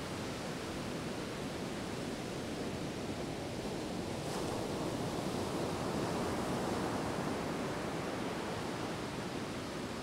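North Sea surf on a sandy beach: a steady rushing of waves, swelling a little louder about halfway through and easing off again.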